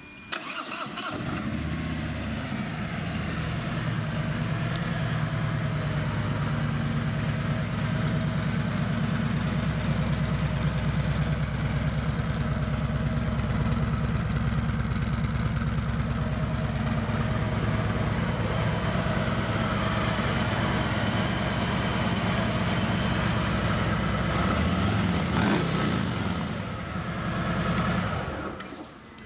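The 2017 Harley-Davidson Road King's Milwaukee-Eight 107 V-twin starts about a second in and idles steadily with a low, evenly pulsing rumble. The sound dies away near the end as the engine is shut off.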